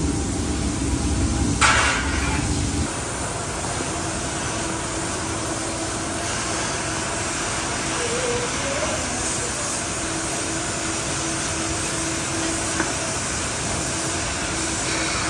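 Steady factory machinery noise, with a short burst of hissing air about one and a half seconds in; a low rumble under it stops about three seconds in, leaving a steady hiss and a faint hum.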